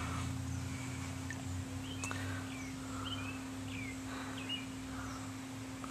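Quiet outdoor background with a steady low hum and a few faint, short bird chirps scattered through it.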